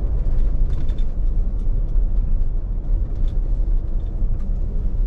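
Steady low road and engine rumble inside the cabin of a 2021 Jeep Wrangler Unlimited Rubicon EcoDiesel driving along a road, with faint scattered ticks over it.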